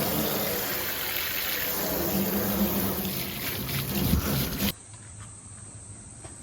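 Steady rush of running water that cuts off abruptly about three-quarters of the way through, leaving a much quieter outdoor background.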